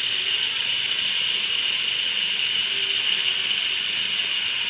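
Stir-fried vegetables sizzling steadily in hot oil in a frying pan, an even high hiss.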